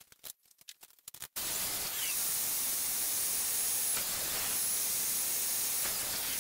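A few light knocks of wood being handled, then about a second and a half in a table saw starts and runs with a loud, steady noise as a rough walnut board is pushed along the sled toward the blade.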